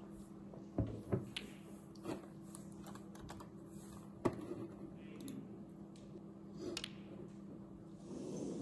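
Scattered, irregular sharp clicks, the loudest about four seconds in, over a steady low hum.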